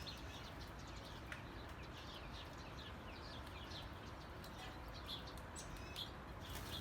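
Faint small-bird chirping: many short, falling chirps, a few a second, over a low hiss.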